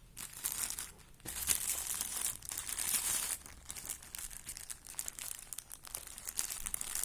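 Plastic packaging crinkling and tearing in uneven bursts as an item is unwrapped by hand.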